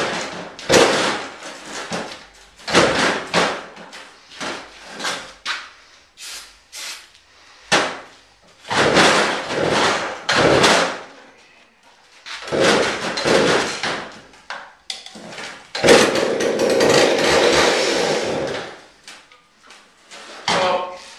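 Two-stroke McCulloch chainsaw being pull-started again and again: a string of short recoil-starter pulls. Several longer bursts of two to three seconds come where the engine fires and then dies. It catches but won't stay running.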